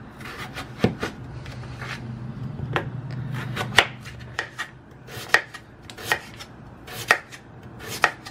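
Kitchen knife cutting a peeled potato into chunks on a bamboo cutting board, the blade knocking on the board with each cut at an uneven pace of one or two cuts a second.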